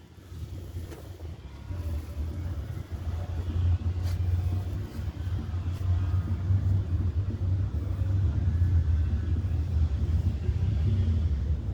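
Low steady rumble that builds up over the first few seconds and then holds.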